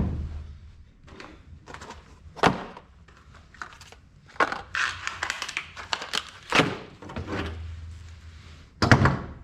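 Irregular knocks, thunks and clatters, as of hard objects being handled and set down, the loudest at the very start and near the end.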